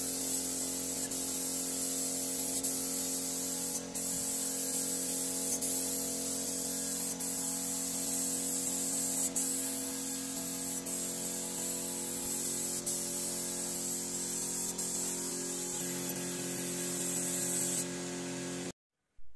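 Gravity-feed paint spray gun hissing steadily as it sprays wood polish, with a steady low hum underneath. The sound cuts off suddenly near the end.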